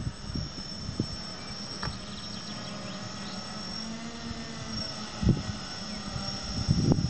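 Hexacopter with six Turnigy Park 450 electric motors flying at a distance: a steady propeller hum. Wind rumbles on the microphone, with a stronger gust about five seconds in.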